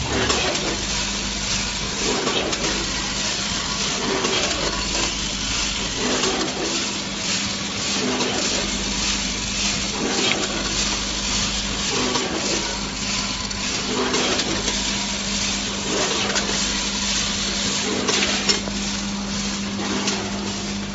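Vertical form-fill-seal snack packing machine running, a steady hum with a short knock repeating about every two seconds as it cycles through bags.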